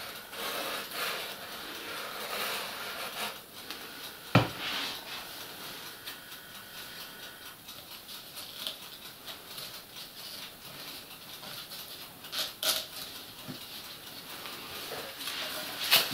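Rustling and scraping of Styrofoam pieces being glued and pressed down by hand on a workbench. A sharp knock about four seconds in, and a few smaller knocks near the end.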